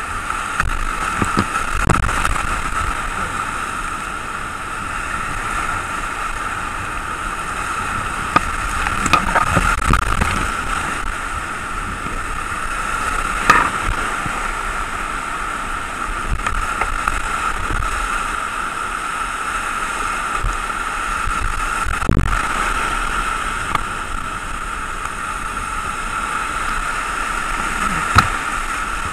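Whitewater rapids rushing steadily around a kayak, heard up close, with occasional sharp splashes and knocks from paddle strokes and water hitting the boat; the loudest comes about thirteen seconds in and another near the end.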